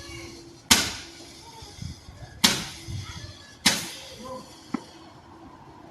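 Fireworks going off: three sharp bangs, each with a short echoing tail, a second or so apart, then a fainter crack.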